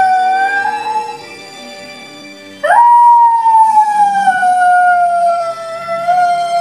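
A dog howling along to TV theme music. One long howl trails off about a second in; after a short pause a new howl starts with a quick upward swoop, then holds a long note that slowly falls in pitch.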